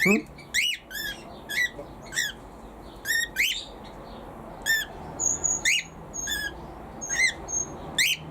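Aviary birds calling: a string of short, sharp calls, one about every half second, with a few thin high whistles joining in from about five seconds in.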